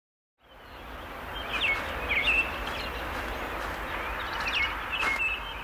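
Small birds chirping in short, repeated calls with quick downward glides over a steady outdoor background noise, fading in about half a second in.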